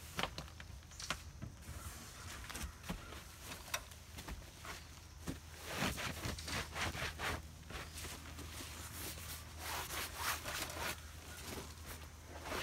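Rustling and scuffing as a person in a disposable protective coverall moves about and handles a cushion: a run of short rubs and steps, busiest about halfway through and again a few seconds later.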